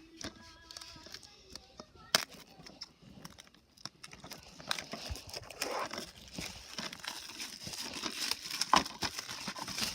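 Plastic packaging crinkling and rustling as a DVD box set is handled, with scattered light clicks.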